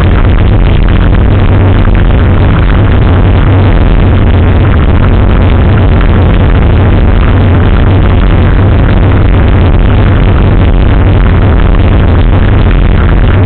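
Loud electronic dance music with a heavy, steady bass.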